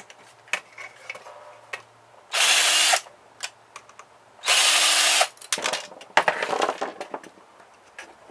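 A power drill running in two short bursts of under a second each, driving screws out of a printer's housing, followed by a run of clicks and rattles as parts are handled.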